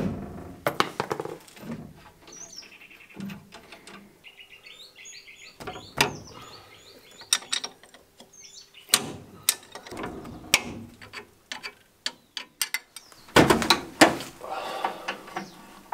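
Metal clicks and knocks of spanners working on a Land Rover Series 1's front axle and spring fittings, scattered irregularly. Small birds chirp for a few seconds in the middle.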